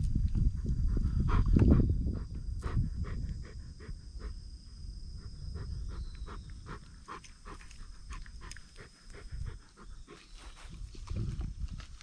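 Bernese mountain dog panting and breathing while its neck is scratched, loudest in the first two seconds, with many light scratching and rustling clicks.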